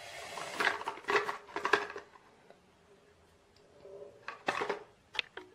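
Small cardboard contact lens boxes handled and turned over on a table: a few light knocks and rustles in the first two seconds, a quiet pause, then a few more near the end.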